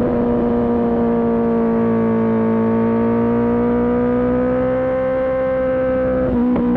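Kawasaki ZX-10R's inline-four engine running at high, steady revs, its pitch sagging slightly and then climbing again. Near the end the note is broken by several quick cuts in a row.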